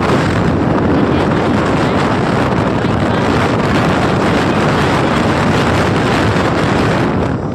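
Heavy wind buffeting a phone's microphone on a moving motorcycle: a loud, steady rush with a brief dip near the end.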